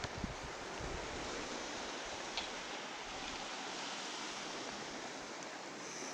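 Steady hiss of sea surf, with wind buffeting the microphone at the start and one short click about two and a half seconds in.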